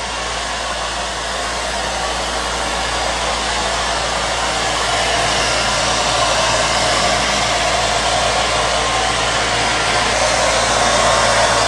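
Embleme wet-and-dry floor cleaner running: a steady motor and suction whoosh, getting slowly a little louder.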